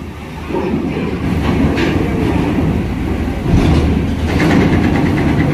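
A large coach bus driving up the steel loading ramp onto a ferry, its engine running under load, with rattling and clanking from the ramp plates under its wheels. It grows louder about half a second in and is loudest in the second half, where a run of quick clicks sits over the engine.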